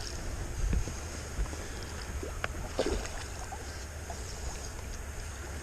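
Wind rumbling on the microphone on open water from a small boat, with a few faint clicks and knocks.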